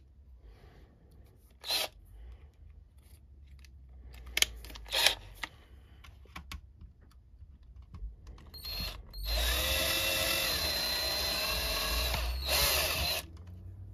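Cordless drill drilling a small pilot hole into a hard plastic toy vehicle's body: a few handling knocks, a brief trigger blip, then the motor runs with a steady whine for about four seconds and stops.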